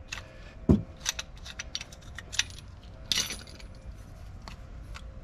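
Small metal clicks and clinks of a clamp-style brake caliper piston compressor tool being loosened and lifted off a dual-piston front brake caliper. There is a sharper knock about a second in and a short scrape about three seconds in.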